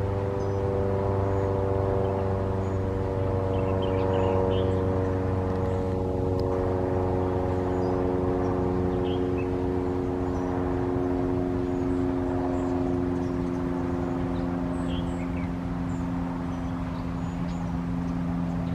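Engine drone, steady and pitched, sinking slowly in pitch.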